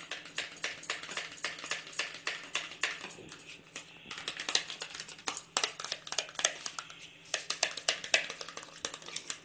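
A spoon stirring mayonnaise and tomato ketchup together in a small plastic bowl: quick, irregular clicks and scrapes of the spoon against the bowl, easing off briefly about three seconds in.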